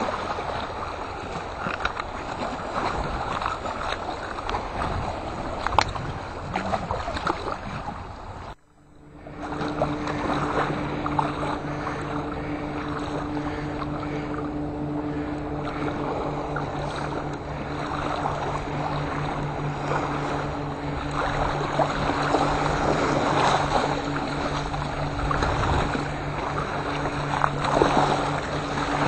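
Water sloshing and splashing, with wind on the microphone. After a short break about a third of the way in, a boat engine's steady low hum runs under the water.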